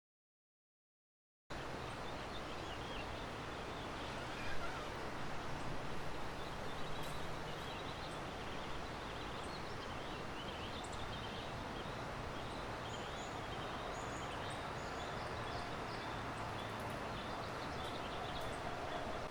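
Steady rushing of a river, with small birds chirping several times over it in the middle stretch. It starts after a second and a half of silence.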